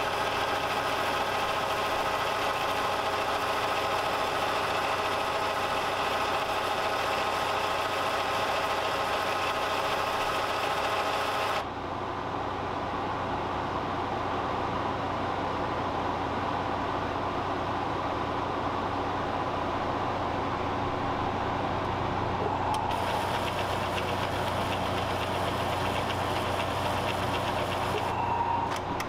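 Epson ET-3760 EcoTank inkjet printer running its initial ink-charging cycle, a steady mechanical hum with several steady tones. The sound changes abruptly about 12 seconds in, when the higher hiss drops away, and again about 23 seconds in.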